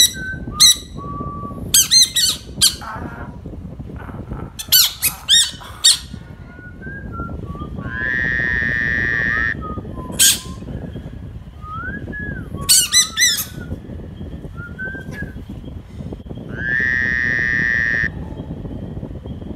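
Frog-like calls: clusters of short, sharp squawks and two long, even, buzzy croaks of about a second and a half each, with small whistle-like glides between them, over a steady background hiss.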